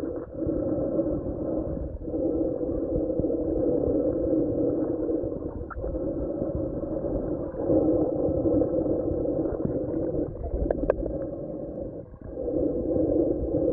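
Muffled underwater sound of river water heard through a camera's waterproof housing: a steady low rushing hum, with a couple of sharp clicks near the end.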